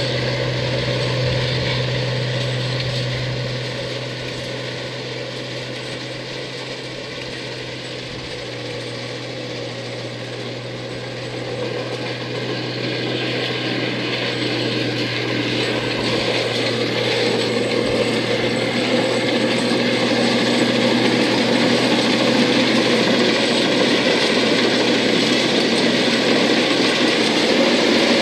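New Holland rice combine harvester running, engine and machinery going with a steady low hum. It grows quieter about four seconds in, then louder again from about twelve seconds on.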